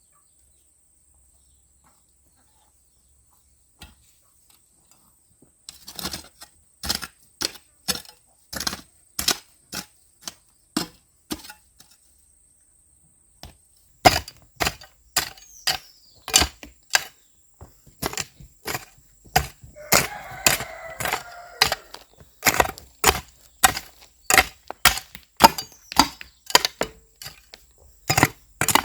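Rhythmic chopping strikes of a hand tool, about two a second, pausing for a couple of seconds before carrying on.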